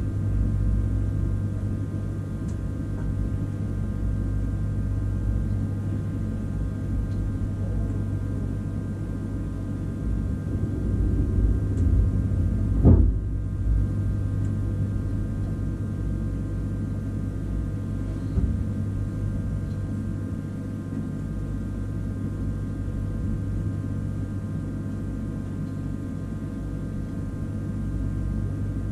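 Siemens Desiro ML electric multiple unit standing at a platform, its onboard equipment giving a steady low hum with several fixed whining tones above it. A few bumps come about halfway through, with one sharp thud among them.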